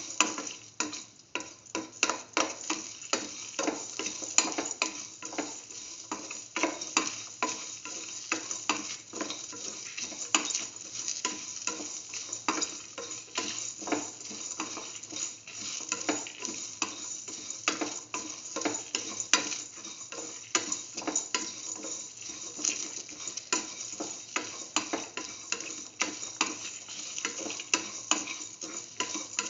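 Sliced onions and whole spice seeds sautéing in hot oil in a metal pan: a steady sizzle under repeated, irregular scrapes and taps as a spatula stirs them against the pan.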